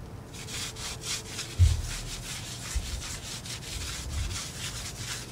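Hand brush scrubbing back and forth on the reflector and painted steel at the rear of a ready-mix concrete truck, a steady run of rubbing strokes that works a concrete remover into the crust, since the remover only works while it is brushed. A low thump about a second and a half in.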